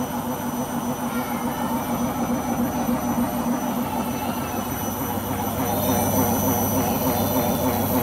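Beko washing machine running with a loud, steady mechanical rumble from the turning drum, growing a little louder about six seconds in. The owner suspects the rubber behind the drum.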